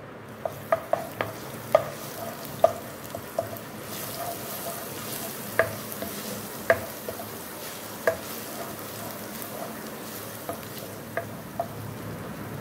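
Ginger garlic paste sautéing in hot oil in a non-stick wok, sizzling steadily while a spoon stirs it and knocks against the pan with short ringing taps. The taps come quickly at first and grow sparser after about four seconds, when the sizzle grows brighter.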